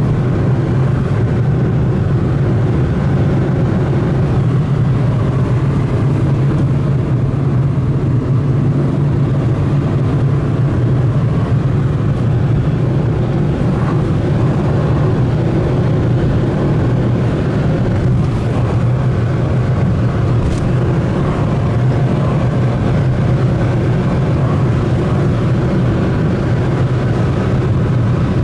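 A vehicle engine running steadily at an even speed: a constant low hum with noise over it, with no revving or changes.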